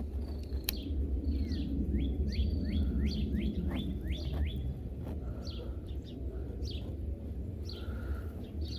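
A songbird chirping: a quick run of short downward-sliding notes, about three a second, then scattered single chirps, over a steady low background rumble.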